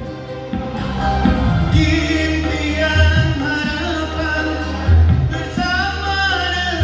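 Live male singing into a microphone over a backing track, played loud through an active PA speaker with a 15-inch subwoofer, with a heavy bass line. The voice comes in about two seconds in.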